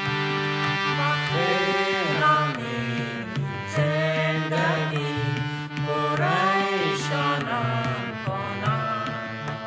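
Dari-language Afghan Christian worship song: a solo voice sings a gliding melody over instrumental accompaniment with percussion, the voice coming in about a second in.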